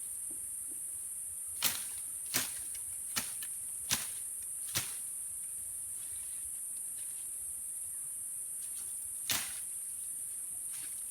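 Bolo knife (itak) hacking at vegetation: six sharp swishing chops, five close together in the first five seconds and one more near nine seconds. Insects drone steadily and high-pitched behind them.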